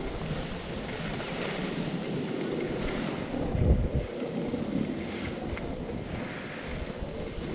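Skis hissing and scraping over packed snow during a downhill run, with wind buffeting the microphone in low gusts, strongest about three and a half seconds in.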